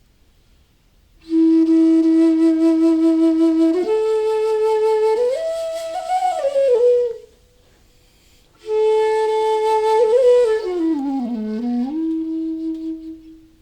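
Bansuri (bamboo transverse flute) played solo. A long held note steps up and bends through ornamented slides, then stops briefly. A second phrase starts on a higher note, slides down and settles on a long held note.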